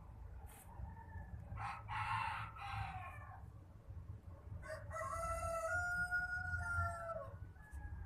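A rooster crowing: a shorter, rougher call about two seconds in, then a long clear crow from about five seconds in that holds its pitch and falls away at the end.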